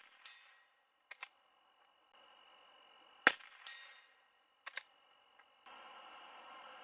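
A .22 LR Savage Mark II bolt-action rifle fires a sharp shot about three seconds in. Each shot is followed less than half a second later by a fainter ring off the steel target. About a second after each shot come two quick clicks as the bolt is worked.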